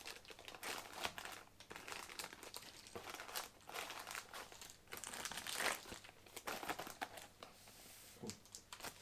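Plastic packaging of a car alarm kit crinkling and rustling unevenly as its wrapped cables and parts are handled and unwrapped.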